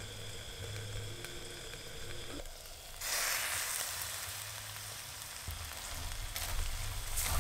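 Frog meat frying in a wok on a gas stove, a muffled sizzle under the lid. About three seconds in the lid comes off and the sizzle gets much louder. Near the end a metal spatula stirs and scrapes in the wok.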